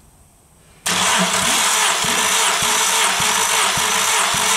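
The starter cranks a 1.4 L 16-valve Skoda BCA engine for a compression test, cutting in suddenly about a second in. It makes a steady whirring with a regular pulse about twice a second, while the tested cylinder builds to about 15 kg/cm².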